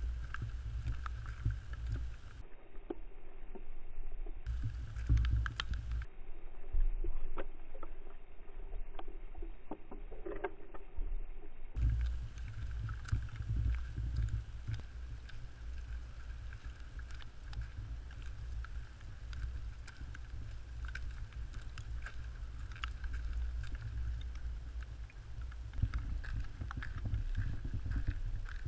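Wind rumbling on the microphone outdoors in wet snow, with scattered light taps. The rumble drops away for stretches in the first half.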